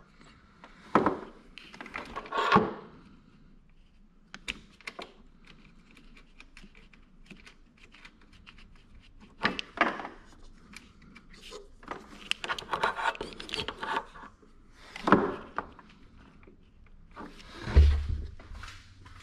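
Hands handling wires and small metal terminals in an ATV's accessory bay: scattered clicks, light knocks and bursts of rubbing against plastic parts, with a heavier low thump near the end.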